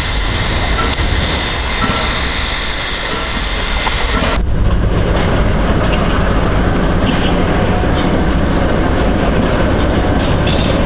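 Loud steady hiss of escaping steam with a high whistling tone from a Polish class Ol49 steam locomotive, cut off abruptly about four seconds in. Then a class SM42 diesel shunting locomotive rolls slowly past, its engine rumbling steadily, with scattered clicks from its wheels on the rail joints.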